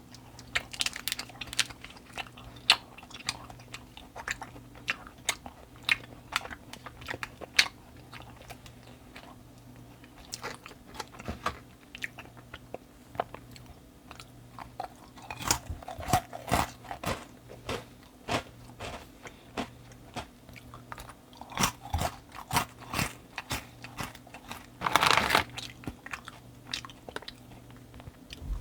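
Close-up crunching and chewing of crisp snacks: sharp bites and crackles, coming thicker in the second half with one longer crunch near the end, over a faint steady low hum.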